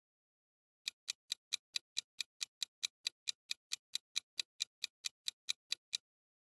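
Countdown timer sound effect: rapid, even clock ticks, about four to five a second, starting about a second in and stopping as the timer reaches zero.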